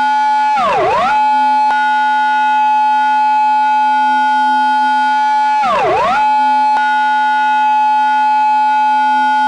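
Japanese police car siren sound effect in its intersection-entry pattern. It holds a steady tone, then twice swoops sharply down in pitch and straight back up, about a second in and again about six seconds in.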